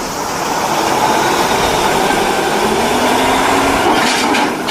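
A vehicle engine running and revving, its pitch rising slowly over a couple of seconds. There is a short burst of hiss near the end.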